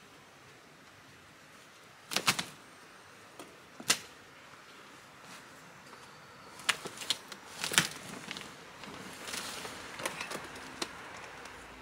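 Knocks and cracks of a rotten, weathered wooden raised-bed frame being pulled apart and tipped over. There is a quick cluster of sharp knocks about two seconds in, another knock near four seconds, a group of louder knocks between about seven and eight seconds, then scraping and rustling of wood and soil with a few clicks.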